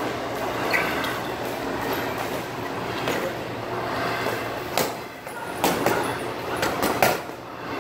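Boxing gloves striking focus mitts: a quick run of sharp smacks in the second half, over a steady rushing background noise.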